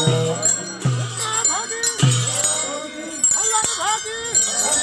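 Brass hand bells rung continuously by several people, ringing and clanging over a crowd's voices, with a low beat that recurs about once a second.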